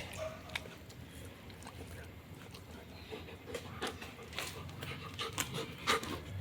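A dog panting, with a run of small clicks and taps in the second half.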